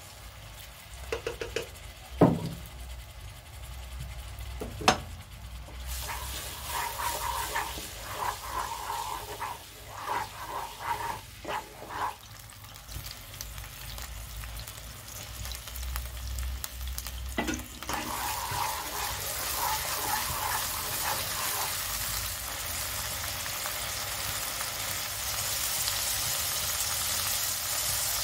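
Oil sizzling in a nonstick wok as a grated paste fries, stirred with a metal spoon. Two sharp knocks come in the first five seconds, then the sizzle builds and grows louder toward the end.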